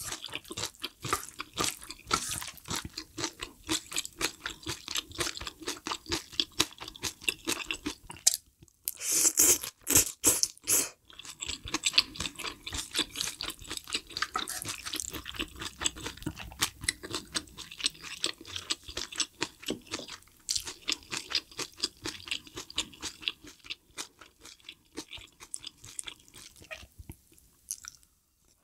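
Close-miked ASMR chewing and crunching of mala hot pot and dry-pot ingredients: a dense run of crisp crunches, loudest about nine to eleven seconds in and thinning near the end.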